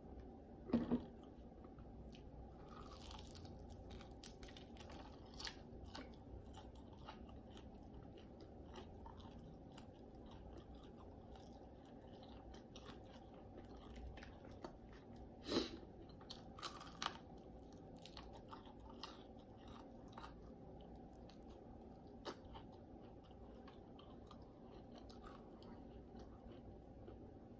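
A person chewing and biting into naked chicken wings close to the microphone: faint, scattered mouth clicks and chewing noises, with a few louder bites about a second in and again around the middle.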